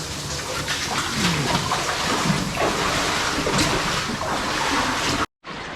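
Shallow water splashing and sloshing steadily in a flooded mine level, cut off abruptly near the end.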